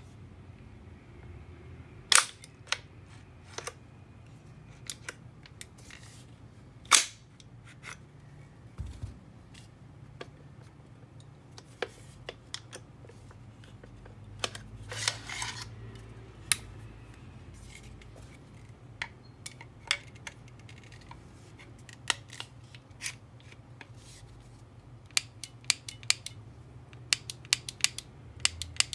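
Sharp mechanical clicks and clacks of a WE gas-blowback Thompson M1A1's bolt and trigger being worked by hand, single clicks spread through and a quick run of clicks near the end. The trigger clicks with the bolt locked open on an empty magazine, a sign that the bolt hold-open may fail and the gun may fire by accident.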